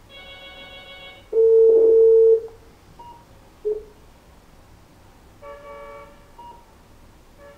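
Electronic phone-call tones from a car stereo's Bluetooth hands-free function as a call is dialled and ended: a buzzy tone at the start, then a loud steady beep lasting about a second, a short beep, and another buzzy tone about two-thirds of the way through.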